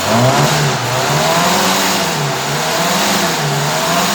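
Ford Capri Mk2 engine running and being revved up and down over and over, its pitch rising and falling in repeated swells.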